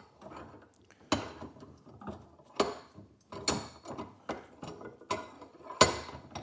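Hand tools working at a steel bolt to extract it from a Volvo 142 door hinge: a series of sharp metallic clicks and knocks, roughly one a second, with rattling between them and the loudest knock near the end.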